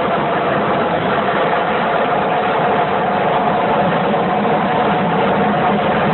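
Steady engine drone running at a constant level, with a faint steady hum on top.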